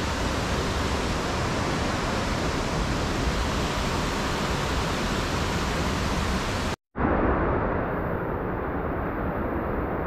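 Steady rushing of a river in flood, running high after heavy rain. About seven seconds in the sound cuts out for a moment, then the rush returns duller, with its hiss gone.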